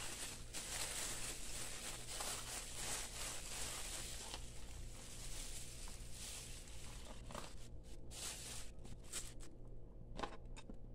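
Thin clear plastic bag crinkling and rustling as it is handled and pulled off a packaged rotor, with a few light clicks and taps near the end.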